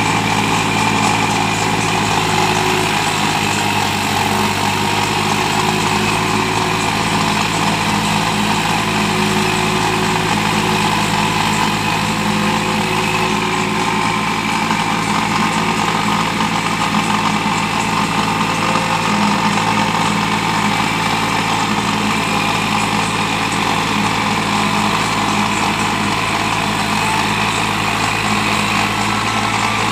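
New Holland 5510 Excel tractor's diesel engine running steadily under load while driving a rotavator through the soil. The engine note stays even, over a constant churning noise.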